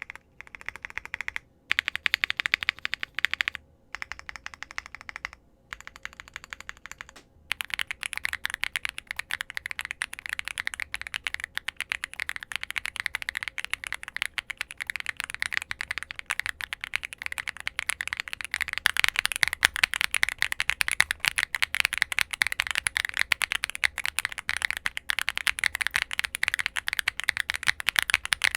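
Typing on a Womier SK65 mechanical keyboard with Mint Blizzard switches and GMK Hanami Dango double-shot ABS Cherry-profile keycaps: rapid key clicks, in a few short spurts with brief pauses over the first seven seconds or so, then continuous.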